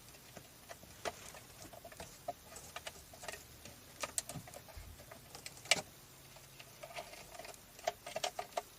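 Scattered light plastic clicks and taps from the sunroof switch on a 2013 Mazda6's overhead console being pressed. No sunroof motor runs: with the engine off, the sunroof does not respond.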